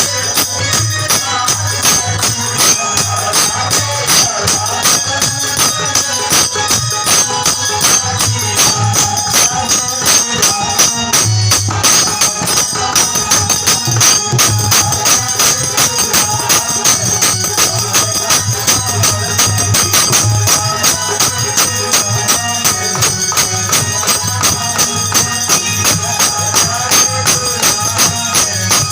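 North Indian folk wedding-song (vivah geet) music, with jingling tambourine-like percussion keeping a steady, fast beat under a melody.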